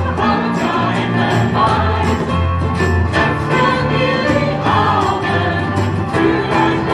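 Live folk-style band playing a song: voices singing together over strummed acoustic guitars, violin and keyboard, with a steady bass line.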